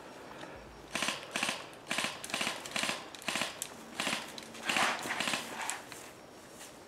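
Short rustling and crunching sounds close to the microphone, like a player moving through long grass and brushing foliage, with gear and clothing rustling. They come in an uneven run of about a dozen, two or three a second, and stop near the end.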